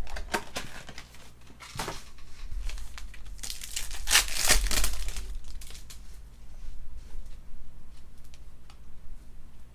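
Foil trading card pack wrappers being torn open and crinkled by hand, in irregular rustling bursts; the loudest tearing comes a little before the middle.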